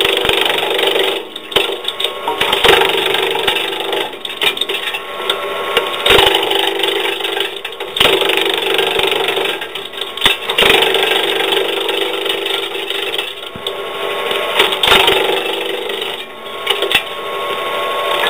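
Branch chipper running and chipping branches as they are fed in, a dense splintering, crackling chatter over the steady hum of the machine. The noise eases briefly several times between branches.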